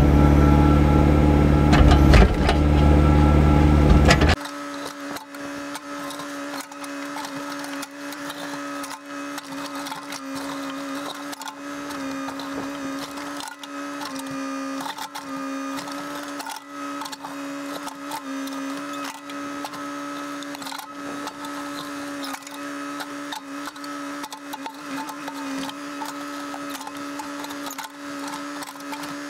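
Caterpillar 432E backhoe loader's diesel engine running under load while the backhoe digs, loud and deep. About four seconds in the sound cuts abruptly to a quieter, thin steady machine hum with a steady whine and no deep bass.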